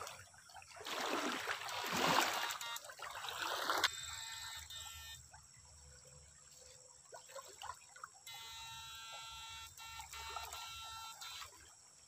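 Shallow river water splashing and sloshing around a wader and a dip net for a few seconds. After that a quieter steady high hum comes on, switching on and off abruptly, twice.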